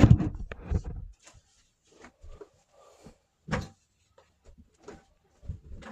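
Close handling or movement noise for about the first second, then a few scattered short knocks, the sharpest about three and a half seconds in, in a small room.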